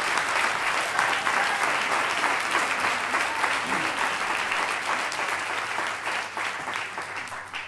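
Audience and choir applauding, the clapping gradually dying away near the end.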